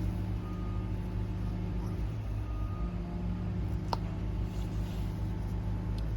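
Steady low mechanical hum, like a running engine, with one sharp metallic click about four seconds in.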